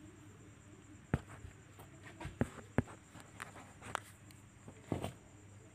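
Kittens scrambling in a cardboard box: irregular taps, scratches and soft knocks of their paws and claws against the cardboard, about half a dozen in all.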